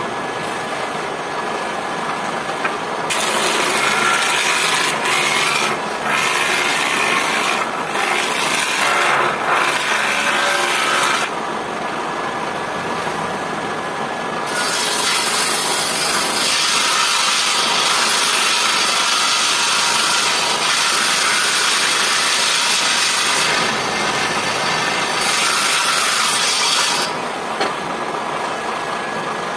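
Woodworking machines cutting lumber: a belt-driven jointer planing a long board, then a table saw cutting. The loud cutting comes in long stretches of several seconds, with the machines running without load in the short gaps between.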